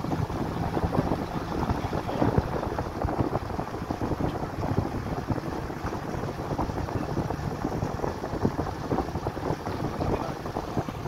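Wind buffeting the microphone, over the steady road and engine noise of a car moving at speed.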